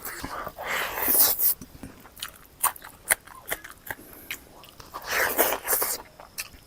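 A person biting and chewing smoked pork close to the microphone, with crunches. There are bursts of chewing at the start and again about five seconds in, and short sharp mouth clicks in between.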